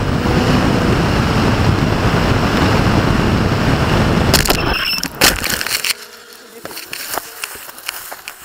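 A firework motor strapped to a model glider burns with a loud, rough rushing hiss for about four and a half seconds, heard from the onboard camera. It ends in a few sharp cracks, then only a quieter wind rush with light clicks as the glider flies on.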